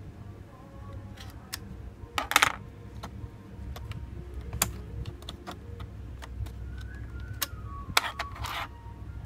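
Clicks and short scrapes of laptop RAM sticks being unlatched, pulled from their slots and set down on the plastic case, with a scraping rustle about two seconds in and another near the end.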